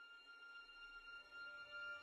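Faint background music fading in: several steady held tones, with a lower note joining about a second and a half in.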